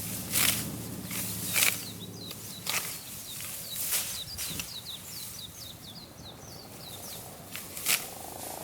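A small bird giving a quick run of high chirps for about three seconds, over sharp rustles or crunches in vegetation that come every second or so.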